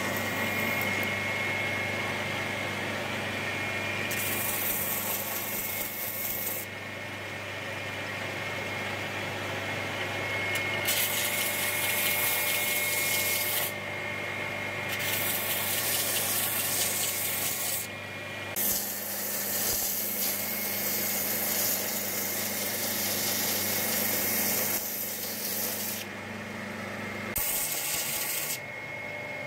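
Belt sander running with a steady hum while a linen micarta knife handle is pressed against the moving belt in about six passes of a few seconds each. Each pass is a harsh, hissing grind over the hum.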